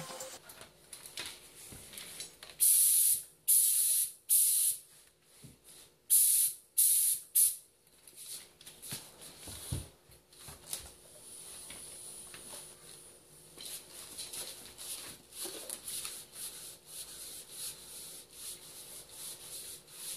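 Six short hissing bursts of compressed air from an HVLP spray gun, in two quick groups of three, spraying in short blasts. After that come quieter rubbing and knocking as the portable air compressor and its hose are moved about.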